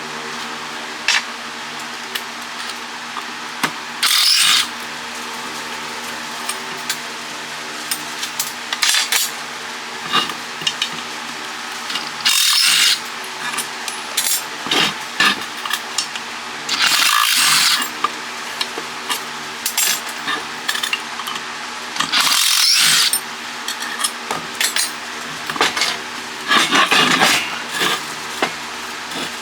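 Tools working on a scrapped electric water-pump motor as it is taken apart: scattered metal clicks and clinks, with five short harsh scraping bursts about every five seconds, over a steady hum.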